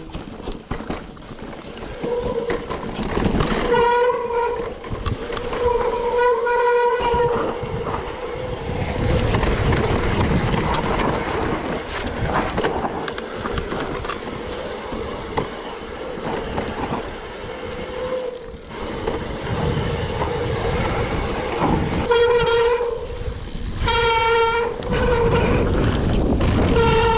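Mountain bike riding down a trail: constant rumble and rushing noise, with a steady whine from the bike that comes and goes several times.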